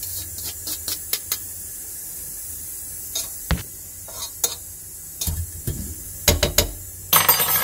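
Drained, parboiled rice being tipped from a perforated metal strainer into a non-stick pot: scattered clicks and knocks of metal against the pot, a few louder knocks past the middle, and a short rustling rush near the end.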